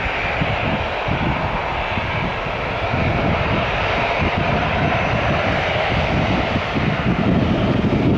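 Airliner engines running with a steady noise from an aircraft near the airfield, while wind gusts buffet the microphone.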